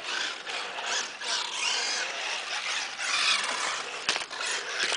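Electric RC truck's motor and gears whining as it drives, the whine rising and falling in pitch with the throttle. A few sharp clicks about four seconds in.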